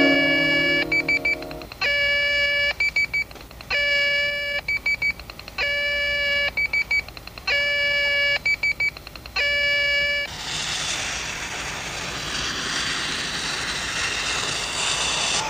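Electronic beeping from a science-fiction computer console: a held electronic tone about every two seconds, six times, each followed by a quick run of short beeps. About ten seconds in this gives way to a steady hiss.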